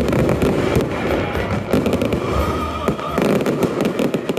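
Fireworks display: aerial shells bursting in quick succession over continuous crackling, a dense barrage with no pause.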